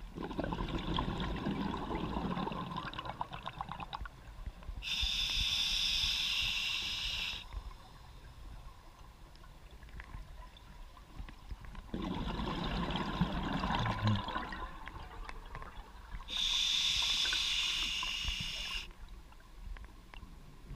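Scuba diver breathing through an open-circuit regulator underwater: a gurgling rush of exhaled bubbles lasting about four seconds, then a steady hiss of inhaled air lasting about two and a half seconds, the cycle heard twice.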